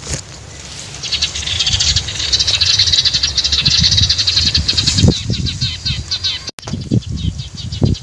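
Small birds chirping in a dense, rapid run, loudest from about a second in until past the middle, over a low rumble.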